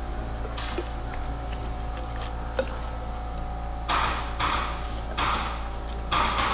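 Resin roller rolled back and forth over wet glass-fibre mat, working the resin into the laminate. About four seconds in it gives a run of short swishing strokes, each about half a second long. A couple of light clicks come earlier.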